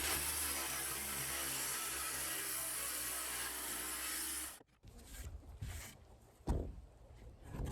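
Cordless power saw cutting wood, running steadily and then stopping abruptly about four and a half seconds in. A few faint knocks follow.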